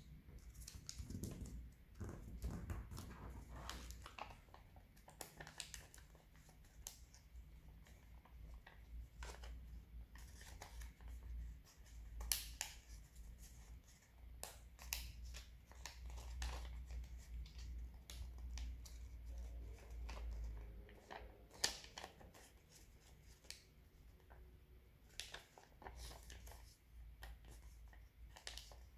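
Faint, irregular rustling and crinkling of a sheet of origami paper being folded and creased by hand, with a few sharper paper crackles.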